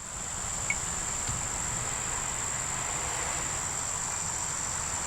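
A steady, high-pitched chorus of insects, one unbroken tone over a soft hiss.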